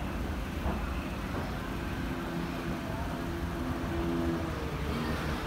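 Outdoor crowd noise with a steady low rumble underneath, and faint distant voices rising above it in the middle.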